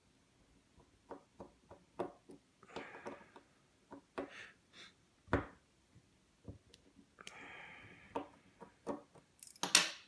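Small metallic clicks, taps and short scrapes of a thin steel tool working at a brass mortise lock cylinder held in the hand, with a sharper knock about halfway and a louder scrape near the end.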